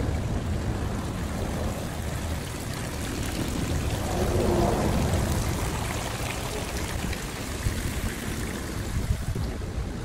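Water running and trickling from garden fountains, heard under steady wind buffeting the microphone, swelling briefly about halfway through.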